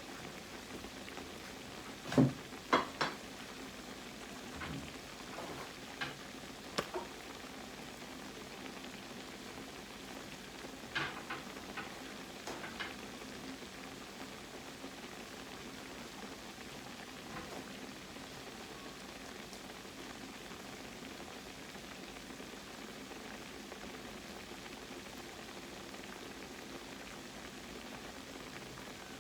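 Croquettes frying in hot oil in a pan: a steady sizzle, with a few short clinks and knocks in the first half.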